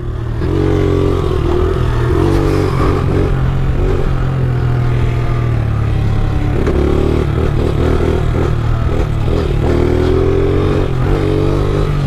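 Pit bike engine revving up and falling back again and again as the rider holds the bike up on wheelies.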